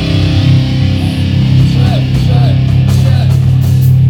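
Electric guitar played loud and distorted through an amplifier, a sustained low chord ringing on during a band's sound check.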